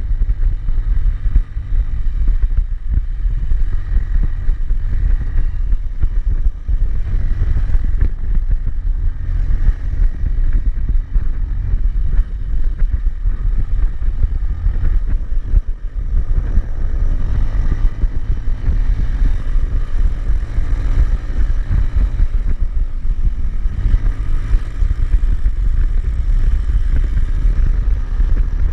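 Wind rushing over the camera microphone while riding a Bajaj Pulsar NS200, its single-cylinder engine running steadily underneath.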